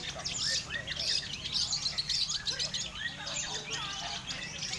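A dense chorus of many songbirds chirping and whistling at once, calls overlapping without pause, with a steady low murmur underneath: the massed sound of a bird-song contest, played to train long-tailed shrikes (cendet).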